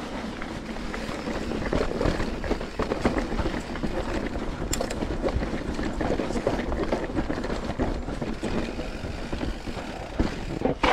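Mountain bike rolling over a rough trail: steady tyre noise with dense rattling and knocking from the bike, and wind buffeting the microphone.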